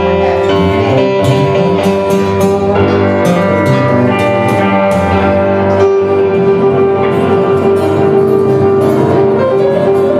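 Live rock band playing without vocals: electric guitar, bass, drums and a Roland FP-7 digital piano, with one note held for most of the passage over steady cymbal hits.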